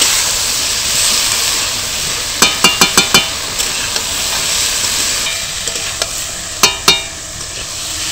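Ridge gourd and moong dal sizzling in hot oil while being stirred and fried, with the stirring spoon knocking against the pan in a quick run of about five strikes a few seconds in and twice more near the end.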